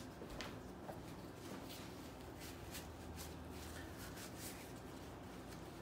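Faint rustling with scattered small ticks, several a second, from gloved hands handling a paper towel.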